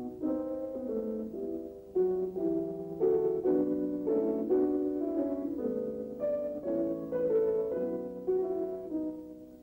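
Background piano music playing notes and chords, fading out near the end.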